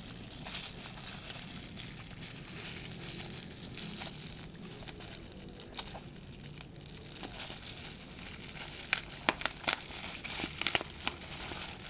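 A toy's packaging being unwrapped by hand: continuous crinkling and tearing, with sharper, louder crackles about nine seconds in.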